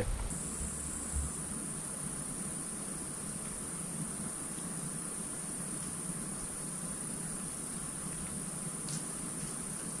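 Night insect chorus: a steady, unbroken high-pitched trill over faint background hiss.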